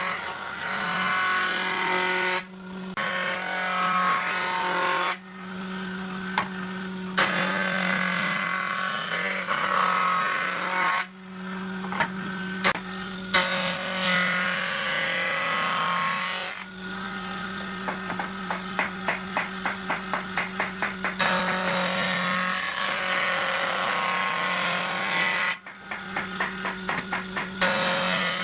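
Power-tool work on wood in several short takes, with a steady motor hum under it. Twice, once partway through and again near the end, there is a rapid run of short taps, about four a second.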